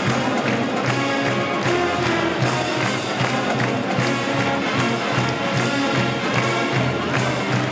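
Upbeat music with a steady beat.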